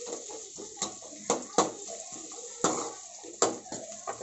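Metal ladle stirring onions and green chillies in a metal kadai, clinking sharply against the pan about six times, over the steady sizzle of them frying in oil.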